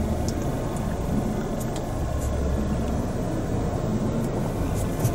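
Steady low rumble of background noise inside a car cabin, with a few faint ticks.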